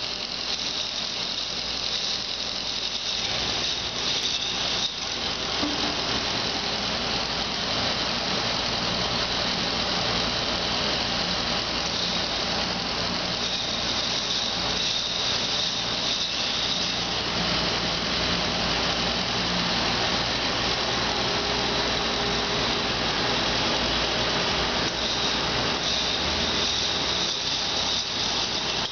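K'nex Loopin' Lightning roller coaster model running: its electric motor box drives the plastic chain lift and gears with a steady squealing whine and a rattle of chain links.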